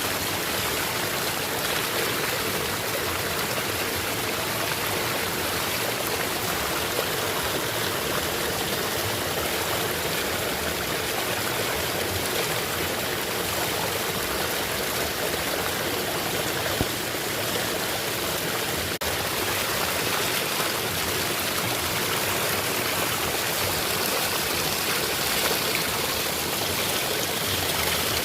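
Small natural waterfall splashing steadily into a shallow stream, a constant even rush of running water.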